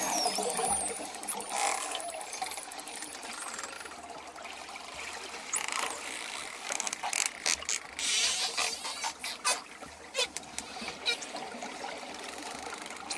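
Dolphins underwater: thin whistles gliding up and down near the start, then runs of sharp echolocation clicks through the second half, over a steady hiss.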